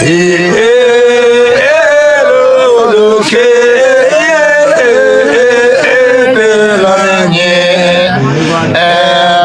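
Men singing a Hyolmo (Yolmo) folk song together without instruments, in long held notes that waver and bend.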